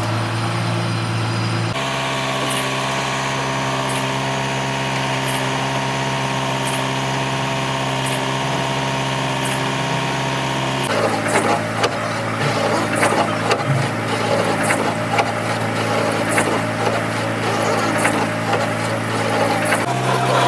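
A machine's motor running with a steady hum that changes abruptly twice. From about halfway on, irregular scraping and clattering of metal tool work joins it.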